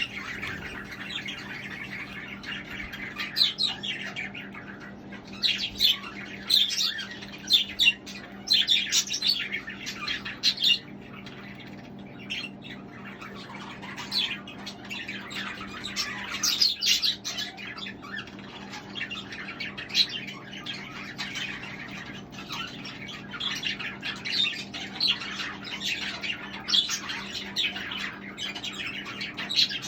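A flock of budgerigars calling and chattering in quick, overlapping chirps and warbles, over a steady low hum.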